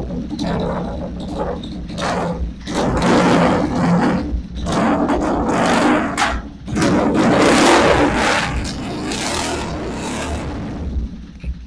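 Kawasaki KZ440 parallel-twin motorcycle engine running and revved up in several surges, about a second long each, while the rear wheel spins. The engine falls away right at the end.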